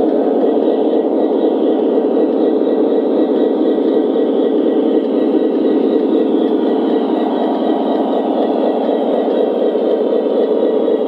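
Onboard sound systems of O gauge Conrail SD80MAC model locomotives playing a steady diesel engine idle while the train stands still.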